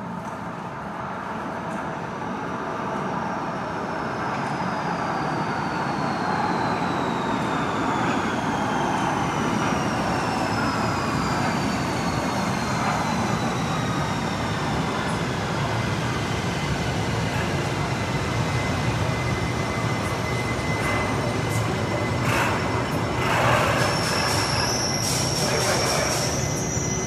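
Astra IVA metro train pulling into an underground station, its rumble growing louder as it arrives. Its drive whines, falling steadily in pitch as the train slows. Near the end, as the train stops, there is a short high squeal and some hissing.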